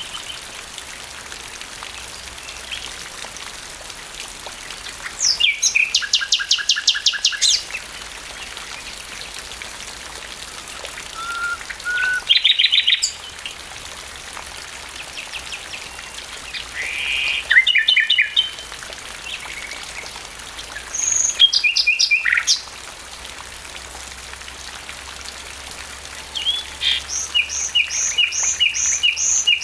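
Common nightingale singing in short phrases of fast repeated notes, about five phrases a few seconds apart, over the steady hiss of light rain.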